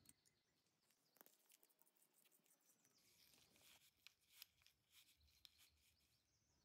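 Near silence, with faint scattered small clicks and ticks, a little more frequent in the second half.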